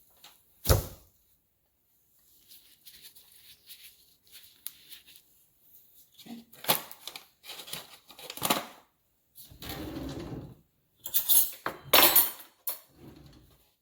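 Kitchen handling noises: a sharp knock near the start, then scattered clicks and rustling, and a louder run of clattering near the end, as containers and utensils are picked up and set down.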